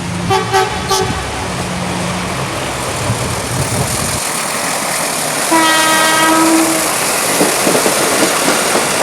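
Train horn sounding a few short toots at the start, then one long blast about five and a half seconds in, over the steady rush and rumble of a moving train. A low engine hum underneath stops about four seconds in.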